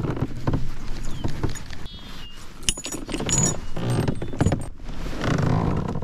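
Fishing tackle being handled: clicking, knocking and rattling of a baitcasting reel and rod, with metallic jingles from the reel and lure.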